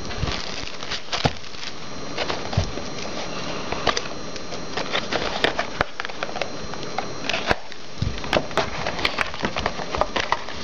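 Trading card box packaging being handled and opened: cardboard and plastic wrap crackling, with irregular sharp clicks and taps that grow busier in the second half.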